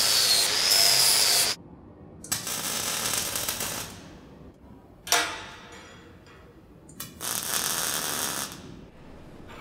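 Angle grinder grinding a steel pipe, a loud grind with a wavering high whine that stops abruptly after about a second and a half. Then three separate bursts of arc-welding hiss and crackle, a sharp one about five seconds in that fades, and the longest near the end.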